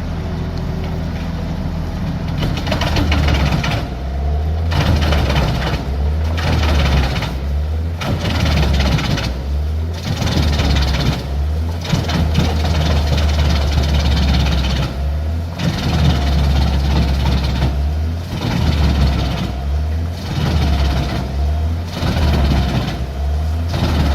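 Wood chipper engine running steadily, with repeated bursts of crunching and shredding as wood is fed into it, starting about two seconds in and coming every second or two with short breaks.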